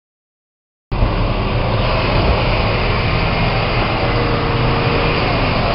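An off-road 4x4's engine running, under a steady, dense rushing noise. It cuts in abruptly about a second in, after digital silence.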